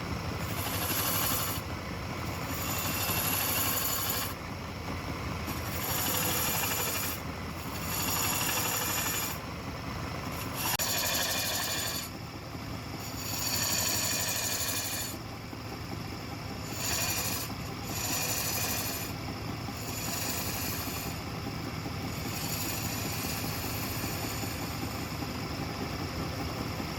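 Wood lathe running while a chisel cuts into the spinning wood, the scraping cut swelling and easing every second or two as the tool is worked along the piece in repeated passes.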